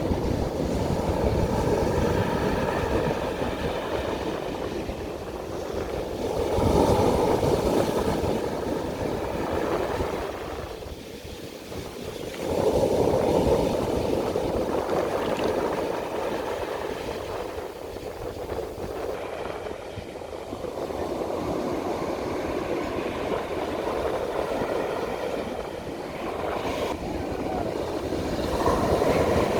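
Ocean waves breaking and washing up a beach, a continuous rushing roar that swells and fades in slow surges, loudest about seven seconds in, again around thirteen seconds, and near the end.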